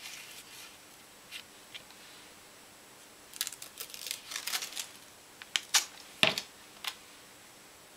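Masking tape being pulled off its roll, a dense run of crackling clicks about three and a half seconds in. This is followed by a few sharp clicks and one louder knock about six seconds in as the tape is handled and the roll is put down on the table.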